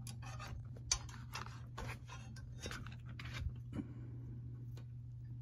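Scattered light clicks and rustles of hands working around the copper refrigerant lines, fitting the TXV's sensing bulb, over a steady low hum.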